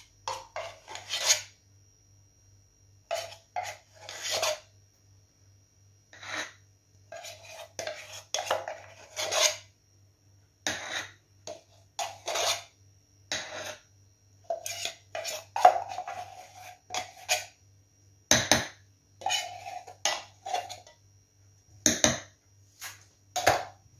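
A spoon scraping and knocking against a bowl in short, irregular strokes, mixing melted chocolate with condensed milk into a thick topping.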